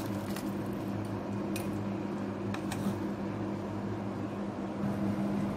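A pot of fish pepper soup simmering over a steady low hum, with a few light clicks of a spoon against the steel pot.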